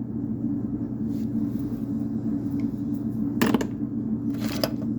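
Two short metallic clatters of hand tools being handled, about a second apart past the middle, over a steady low hum.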